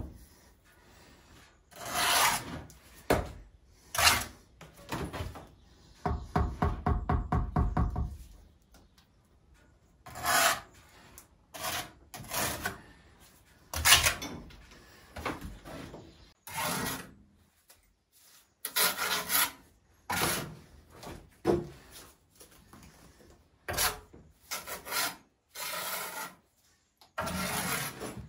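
Mason's trowel scraping and spreading mortar on brickwork and tapping bricks into place: a string of short separate scrapes and knocks, with a quick run of strokes about six seconds in.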